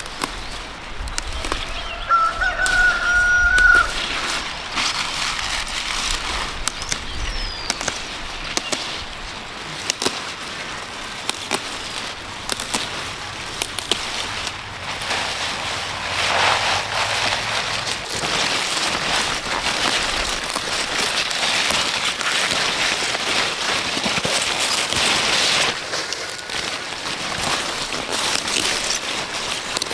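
A rooster crows once, about two seconds in. Throughout, leafy greens rustle and crackle as they are picked and handled, busiest in the second half.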